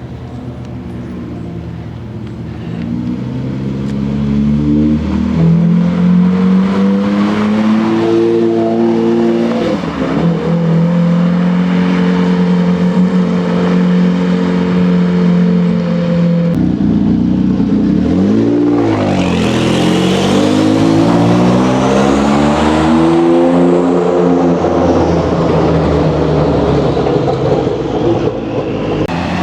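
Lamborghini Murciélago SV's V12 revving hard and accelerating, the engine note climbing and then holding high. About halfway through the sound changes suddenly, and another supercar engine blips, revs up and passes by.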